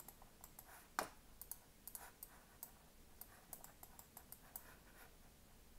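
Faint, scattered clicks from a computer mouse and keyboard, with one sharper click about a second in and lighter clicks spread through the rest.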